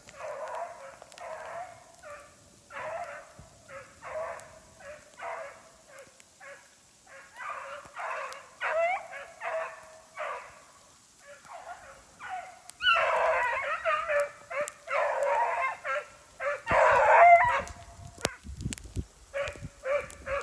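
Hare hounds baying, a string of drawn-out howling calls about once or twice a second that grows louder and more crowded about two-thirds of the way through: the cry of hounds running a hare's track.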